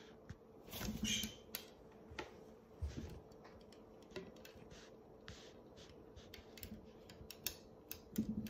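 Quiet, scattered clicks and taps from an African grey parrot's beak and feet on a wooden chair back close to the microphone, with a slightly longer soft sound about a second in.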